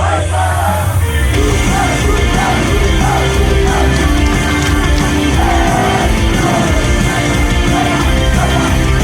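Loud rock-styled J-pop idol song played over a live-house PA with singing. The bass and drums come in full right at the start, and the rest of the band track fills in about a second later.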